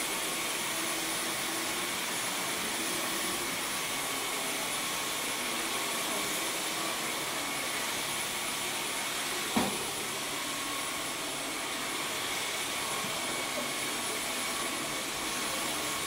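Dyson V11 Absolute Extra cordless stick vacuum running steadily as it is pushed over the floor: a constant rush of air with a thin high whine from the motor. A single sharp knock comes a little past halfway.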